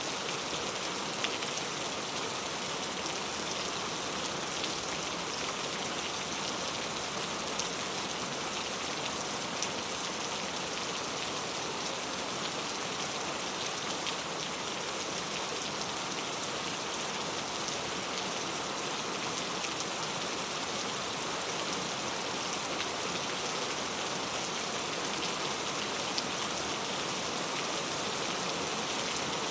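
Heavy rain falling steadily, an even hiss with scattered sharper drop ticks on a hard surface.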